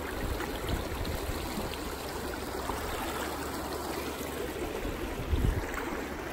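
River water running steadily over a shallow, rocky bed, with a brief low bump about five seconds in.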